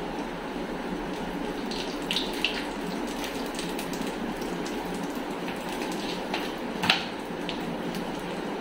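Potato cutlets shallow-frying in oil in a frying pan, sizzling steadily. A few sharp clicks, the loudest about seven seconds in, come from metal tongs turning the cutlets.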